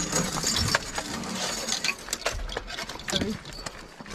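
Scattered light clicks, clinks and knocks of metal gear and weapons being handled around an armoured vehicle, over a steady background hiss.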